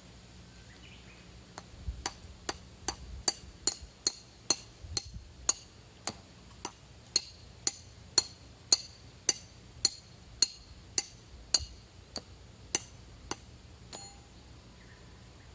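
Metal clinking, evenly repeated about twice a second for roughly twelve seconds, each strike short and ringing.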